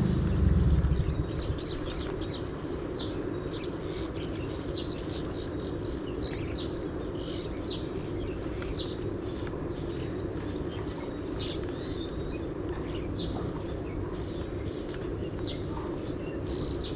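Small birds chirping in many short, high calls over a steady low background rumble. A louder low rumble fades out about a second in.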